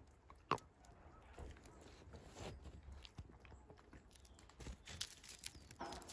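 A Shiba Inu biting and chewing dry bamboo grass leaves, scattered crisp crunches, with its paws crunching in snow; one sharp crunch about half a second in.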